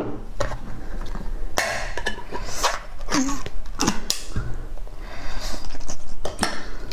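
Pull-tab lid peeled off a can of raw shrimp in chili sauce, a few short scraping and tearing noises, then the can tipped over and the sauce and shrimp pouring out onto a plate.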